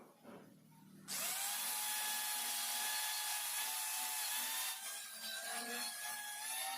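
Small power tool switched on about a second in. It runs with a steady high whine and a dense hiss of abrasion against metal. The sound turns rougher partway through, and the whine sags in pitch near the end as the tool is pressed harder.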